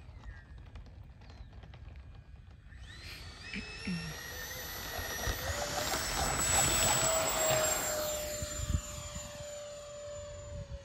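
Freewing P-8 Poseidon RC jet model's twin electric ducted fans spooling up for takeoff. About three seconds in, a whine starts and rises in pitch through the takeoff roll. It is loudest around six to eight seconds as the model lifts off, then holds its pitch and fades a little as it climbs away.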